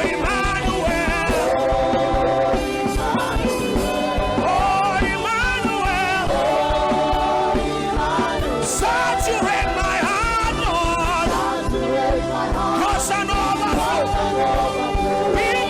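Gospel worship music: a voice singing gliding, bending lines over steady held chords.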